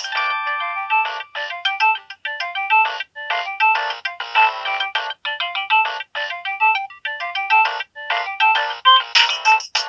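Nokia 7610 mobile phone playing a polyphonic ringtone melody through its small loudspeaker. It is a fast run of short synthesized notes in repeating phrases, thin with no bass.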